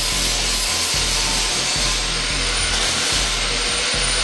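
Electric arc welding on the steel-tube helicopter chassis: a steady, loud hiss and crackle, with a thin high whine that drops out and comes back about two-thirds of the way through.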